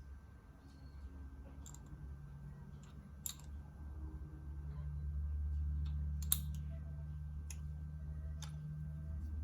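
Scattered sharp metallic clicks, about five, loudest about six seconds in, of hand tools working a grease fitting on a driveshaft universal joint as it is turned to line up. A steady low hum lies under them.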